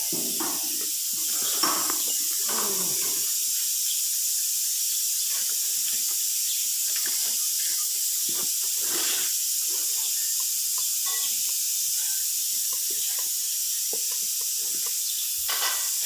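A steady high hiss, with faint scattered clicks and knocks.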